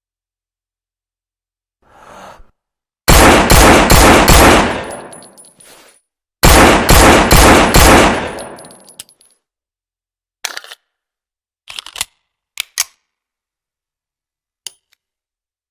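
Colt 1911 pistol fired in two quick strings of about five shots each, each string trailing off in a long echoing tail. Afterwards come several short, sharp metallic clacks.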